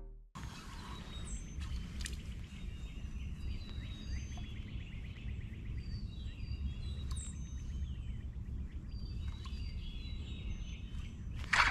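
Several birds calling and chirping, with short whistled notes and quick downward-sweeping calls over a steady low rumble of outdoor background noise. A sudden, much louder sound begins right at the end.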